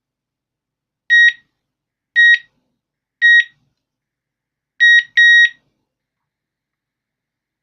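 Digoo DG-ROSA alarm unit's built-in beeper giving short electronic beeps: three single beeps about a second apart, then after a pause a quick pair, the second one slightly longer.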